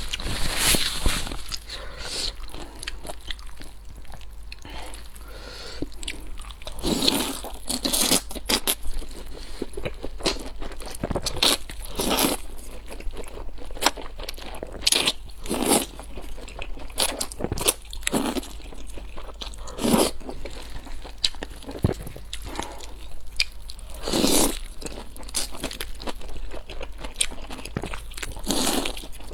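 A person eating close to the microphone: crunchy bites and chewing, with louder crunches every few seconds.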